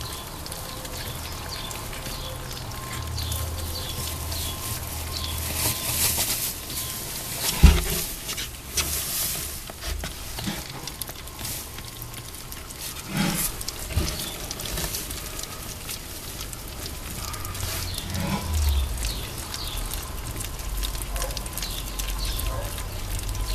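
Four-week-old ferret kits feeding on a rabbit carcass: wet chewing, tearing and smacking with rustling in straw bedding, and a few short low thumps.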